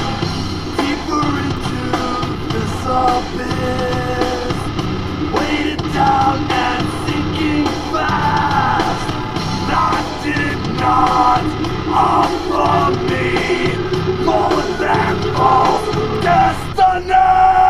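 Rock music with a sung and shouted lead vocal, playing continuously.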